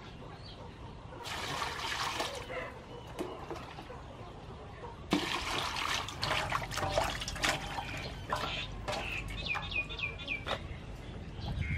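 Water poured from a plastic bowl into a large aluminium basin, then splashing and sloshing as carrots and long beans are washed by hand, with small knocks against the basin.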